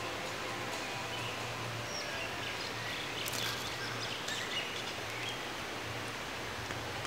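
Outdoor forest ambience: a steady hiss with a low hum underneath, and a few short, high bird chirps around the middle.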